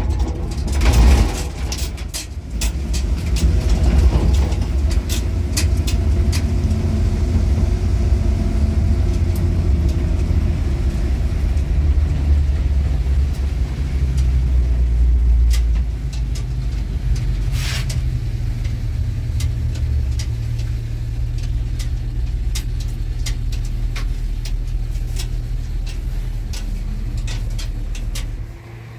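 Motor vehicle engine running under way: a steady low rumble with scattered knocks and rattles. It drops away sharply just before the end.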